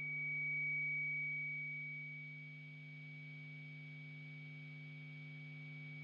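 Faint electronic drone from the film's soundtrack: steady sustained tones, a low hum under a thin high whistle, swelling in the first second and then fading to a quieter hold.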